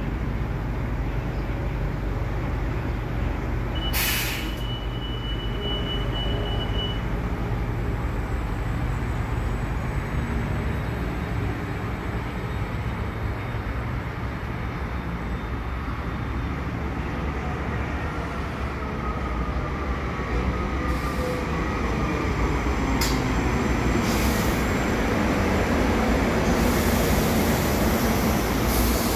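SEPTA Regional Rail electric multiple-unit train approaching and running past on the far track, its rumble growing louder over the last several seconds. There are two sharp clicks, one about four seconds in and one about two-thirds of the way through.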